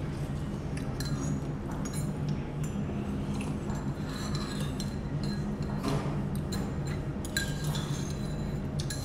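Metal spoons clinking now and then against small ceramic soup bowls as people eat, over a steady low hum.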